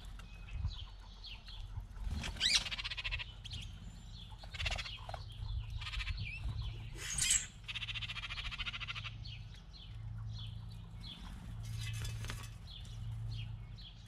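Songbirds calling: many short high chirps, mixed with several harsh, rasping chatter rattles, the longest about halfway through, over a low steady hum.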